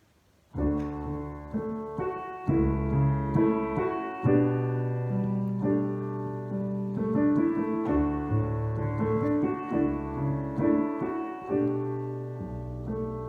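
Piano playing the introduction to a hymn, a slow run of sustained chords over a moving bass line, starting about half a second in after near silence.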